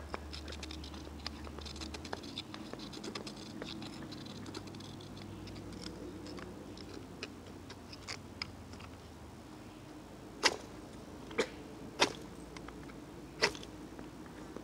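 Knife spine scraped along a ferrocerium rod to throw sparks onto birch bark: light scraping and small clicks at first, then four sharp strikes in the last few seconds. The fire is being hard to light with a cheap ferro rod, which is called junk.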